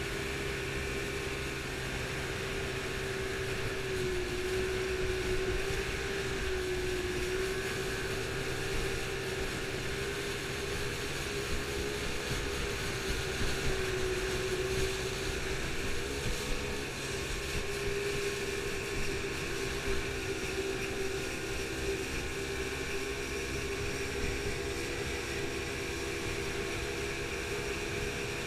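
Motorboat engine running steadily under way, its pitch wavering slightly up and down, over a steady rush of water and wind.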